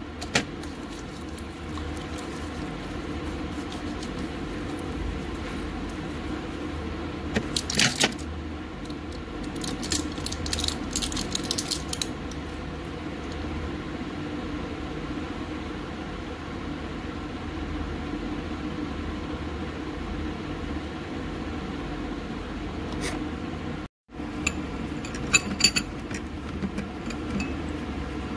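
A steady hum with scattered clicks and rustles of a phone being handled close to the microphone. The clicks come in clusters about eight seconds in, a couple of seconds later, and again near the end.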